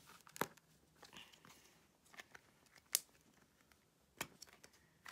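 Scattered faint clicks and crinkling as fingers handle and pick at a small opened plastic slime tub, with one sharper click about three seconds in.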